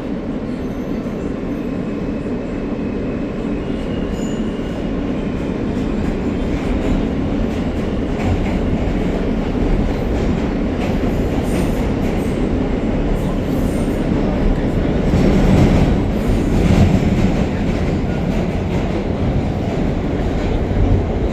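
R160A subway train running between stations, heard from inside the car: a steady rumble of wheels on rail with some clatter. It grows louder about fifteen seconds in.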